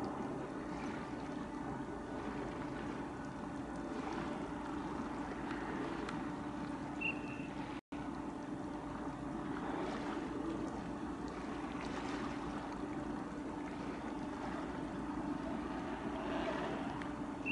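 Steady low hum of a small high-speed passenger boat's engine idling while moored, with a short high chirp about seven seconds in and a brief cut-out of all sound just before eight seconds.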